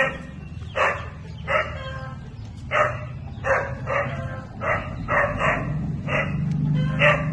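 An animal giving short, repeated calls, singly and in quick pairs or threes, about a dozen in all, over a steady low hum.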